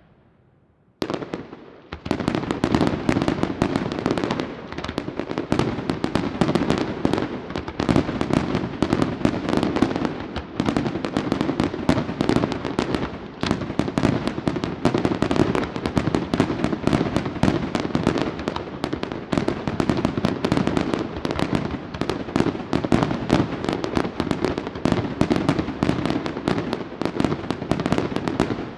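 Fireworks display: after a quiet first second, a dense, unbroken barrage of rapid bangs and crackles starts and keeps going.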